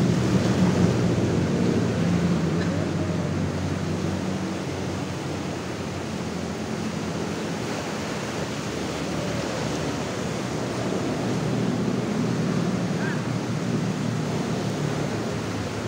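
Ocean surf breaking and washing over a sandy shore in a steady rush. It is loudest at the start, eases off in the middle and swells again later on.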